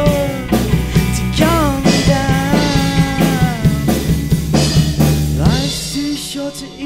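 Live rock band: a male singer sings over electric guitar, bass guitar and drum kit. About five and a half seconds in, the bass and drums drop out, leaving the voice and guitar.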